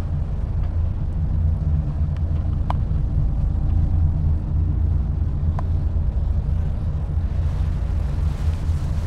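A ferry's engines running with a steady low drone, heard from the open deck, with two faint clicks about three seconds apart.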